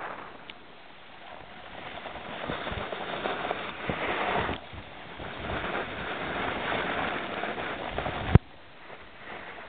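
Snowboard sliding and carving over snow, a scraping hiss that swells and fades with the turns. A sharp knock comes about eight seconds in, and after it the sound drops much quieter.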